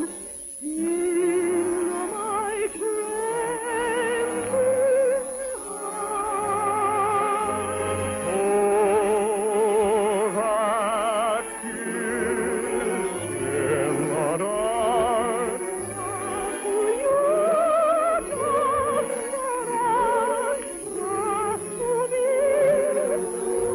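Operetta music: an orchestra playing with operatic-style singing, the sustained notes carrying a strong vibrato.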